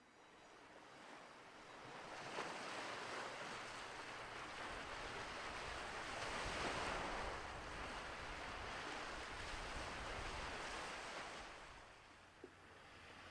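Small waves washing onto a lakeshore, a steady wash that fades in over the first two seconds.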